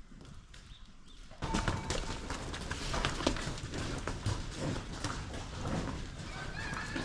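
Cattle moving about in a barn, hooves knocking irregularly, starting suddenly about a second and a half in.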